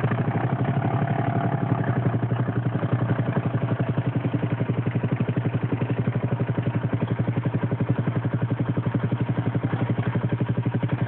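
ATV engine running steadily at a low, even speed, its exhaust pulsing rapidly and regularly without revving.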